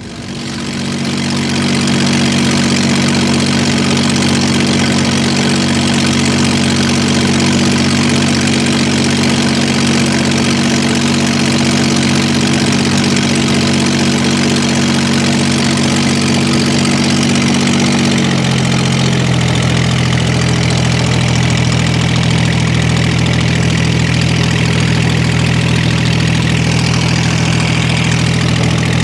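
A small fishing boat's engine running steadily under way, coming up to speed over the first couple of seconds. About two-thirds of the way through its pitch steps down and it runs on steadily at a lower speed.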